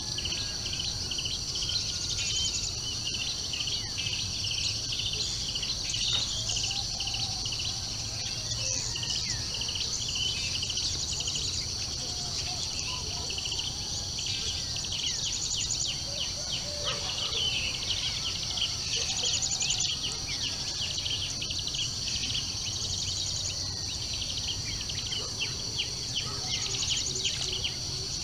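Birds calling and singing in many short, repeated chirps over a steady high insect drone, as in a dawn chorus. A low steady hum runs underneath.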